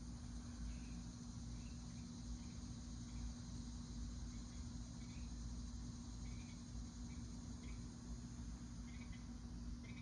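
An insect chirping: short, repeated chirps at a steady, middling pitch, over steady hiss and a low electrical hum.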